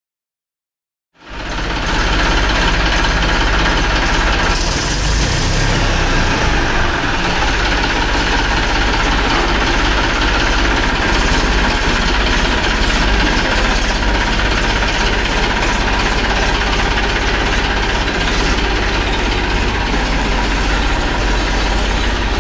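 Eicher 480 4WD tractor's diesel engine idling steadily. It comes in about a second in, after a brief silence.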